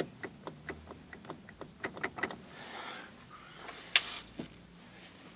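A loose rear-seat headrest in a VAZ-2114 being rocked by hand, knocking in its mounts: a run of irregular light knocks, with a sharper one about four seconds in. The headrest sits loose in its guides and rattles with play.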